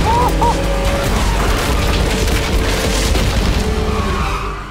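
Cartoon explosion sound effect: a loud boom that rumbles on and dies away near the end, with music playing under it.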